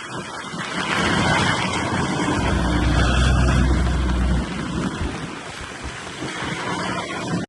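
Bobcat S570 skid steer loader's diesel engine running, swelling in a deeper rumble for a couple of seconds around the middle, with heavy wind noise on the microphone; the sound cuts off abruptly at the end.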